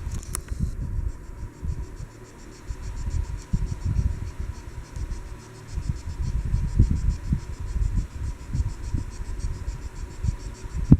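A sleeping pet snoring, its breaths coming as uneven low rumbles a second or two long. Crickets chirp steadily in the background as a rapid, even high pulsing.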